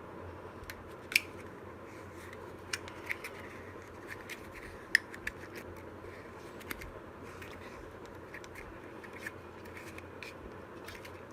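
Scattered small clicks, snips and scratches of hand work on a transformer bobbin and its winding wire, at uneven intervals, over a steady hiss; the sharpest clicks come about a second in and about five seconds in.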